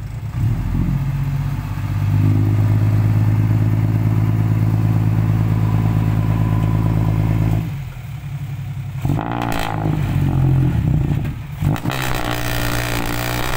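Dump truck's diesel engine revved up and held at a steady high speed while the hydraulic tipper bed rises to unload soil. About seven and a half seconds in it drops off, then revs unevenly with clattering.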